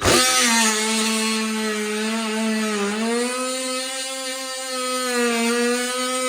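Handheld power tool starting up abruptly and running steadily, its pitch dipping briefly twice as it bites into the material under load.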